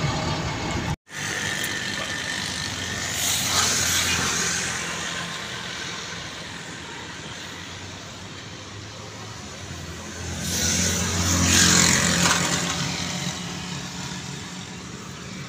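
Car on the move: steady engine and road noise, swelling louder twice, about three seconds in and again about ten to twelve seconds in. The sound cuts out briefly about a second in.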